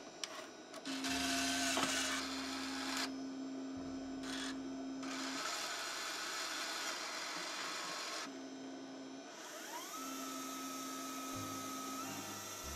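An IBM Ultrium LTO-5 half-height tape drive loading a freshly inserted cartridge: the mechanism whirs over a steady hum that comes and goes. About ten seconds in, a motor whine rises in pitch and holds, and it rises again near the end.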